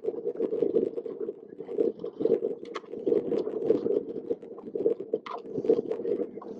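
Wind buffeting the microphone on a motorboat running over choppy water: a gusty rumble that swells and drops, with scattered sharp knocks.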